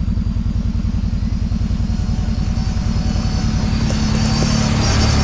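Kawasaki Brute Force 750 ATV's V-twin engine running under way with a rapid, even low pulse, picking up slightly near the end.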